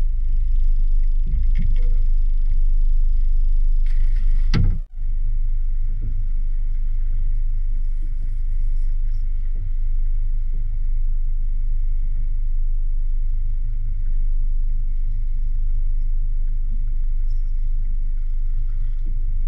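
Steady low rumble of wind buffeting the microphone on an open boat, with water lapping at the hull. A brief louder rush comes about four seconds in, and the sound drops out for an instant just before five seconds.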